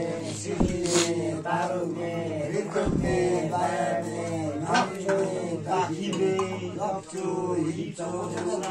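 Men's voices chanting in a continuous, sing-song recitation, with a couple of brief clicks about a second in.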